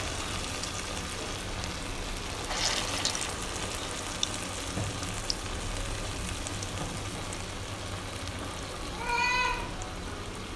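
Urad dal vada batter frying in hot oil in a kadhai over a low-to-medium flame: steady sizzling and bubbling with small crackles as the vadas puff up. Near the end a short, high-pitched wavering cry lasting about half a second rises over the sizzle.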